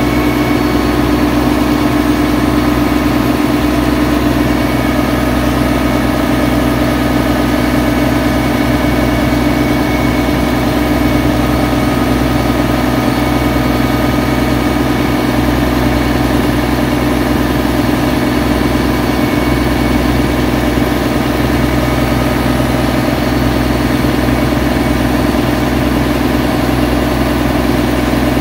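The engine of a river passenger boat runs steadily, heard from on board, with an even, unbroken hum and no change in speed.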